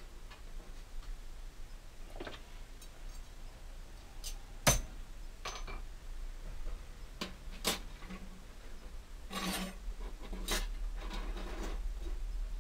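Iron scrolls handled, slid and set down on a workbench: light metal clinks and scrapes, with one sharp clank about five seconds in.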